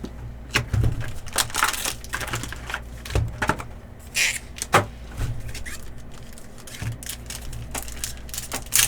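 Trading cards and their packaging being handled on a table: a run of scattered clicks, taps and short rustles.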